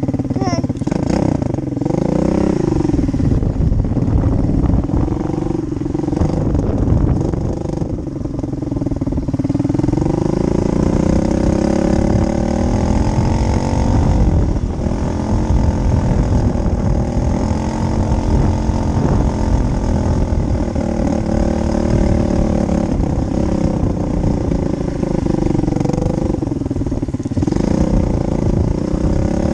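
Small off-road motorcycle or quad engine running as it is ridden, its revs rising and falling over and over. There is a lot of low rumble underneath.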